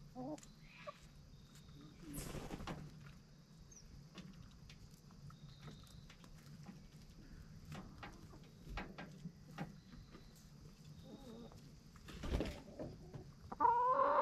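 Backyard hens clucking softly while pecking at scraps on dirt ground: many small sharp taps of beaks, two brief rustles, and louder clucks near the end.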